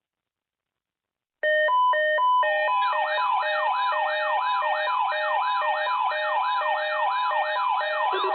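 Electronic siren and alarm tones start suddenly after about a second and a half of silence. A few quick stepped beeps are followed by a wailing siren sweep that repeats about two and a half times a second over steady pulsed beeps, and a lower pulsing tone joins near the end.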